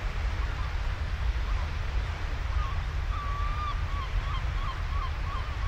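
Steady wash of surf and wind with gulls calling over it, short calls coming in a quick series through the middle.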